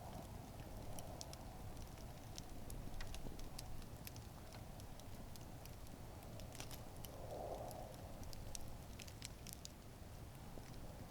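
Wood campfire burning, with many small sharp crackles and pops scattered irregularly over a low steady rumble of flame.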